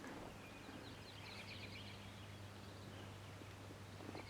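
Faint, distant bird call: a rapid, high trill, heard for a couple of seconds and starting again near the end, over a quiet background.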